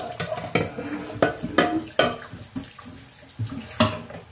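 Tap water running into a stainless steel sink while a frying pan is scrubbed and handled, with repeated sharp clanks of pans and dishes against the sink at irregular intervals, the loudest near the end.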